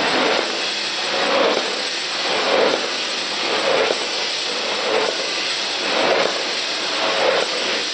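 Automatic nitrogen-flush snack chip packaging machine, a multihead weigher feeding a vertical bagger, running in its bagging cycle: a steady mechanical noise with a surge about once a second as each bag is filled and sealed.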